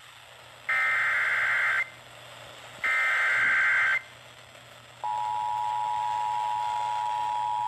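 Emergency Alert System SAME header: two buzzy digital data bursts about a second long each, a second apart. About five seconds in, the EAS two-tone attention signal starts and holds steady. Together they mark the start of an EAS alert, here a severe thunderstorm warning.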